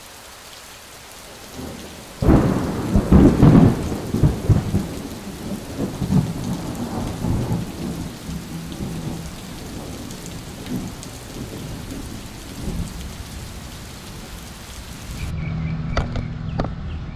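Heavy rain falling, heard from inside an RV looking out through its wet window, with a clap of thunder about two seconds in that rumbles away over several seconds. Near the end the rain gives way to a steady low hum.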